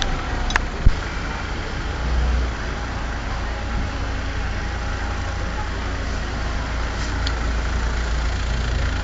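Steady rumble of motor vehicle engines running in the street, with a sharp click about a second in.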